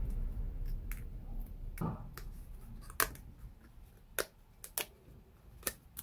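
Small laser-cut wooden pieces snapping out of a thin plywood sheet as they are pressed and pried free: about seven sharp, irregular clicks over faint handling, the loudest about three seconds in.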